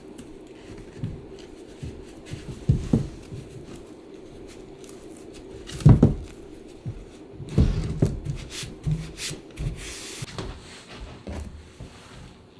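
Workshop handling sounds from upholstery work on a wooden dining chair: scattered knocks and thumps, the loudest about halfway through, and a brief rustle near the end, over a faint steady hum.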